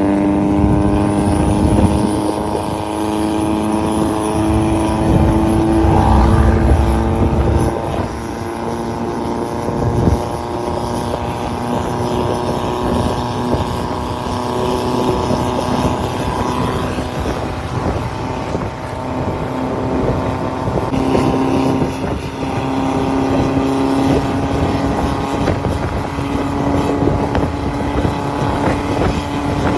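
Diesel vehicle engine running steadily under load, its pitch shifting slightly a couple of times, with some wind noise.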